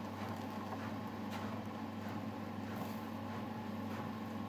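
A steady low hum, with faint trickles of sesame milk being squeezed by hand through a straining bag into a plastic jug.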